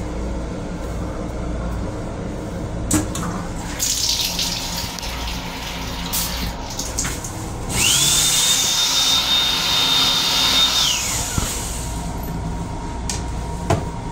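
Restroom sink faucet in an M7 railcar running for about three seconds, a rush of water with a steady high whine that rises as it starts and falls away as it stops. A few sharp clicks come before and after, over the steady rumble of the moving train.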